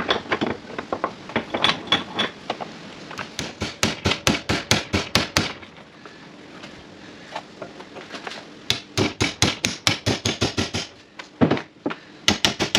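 Hammer striking a chisel again and again, driving the steel centre sleeve out of a car's lower control arm bush held in a vise, its rubber already drilled out. The blows come in quick runs of several a second, with a pause of about three seconds in the middle and a few more blows near the end.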